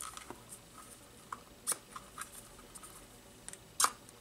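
Hard plastic wheel centre being forced into a tight rubber RC tyre by hand: faint rubbing and scattered small clicks, with two sharper clicks, one about two seconds in and one near the end.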